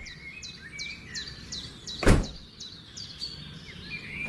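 Birds chirping, quick high chirps about three a second over a thin whistle. One loud sudden thump about two seconds in.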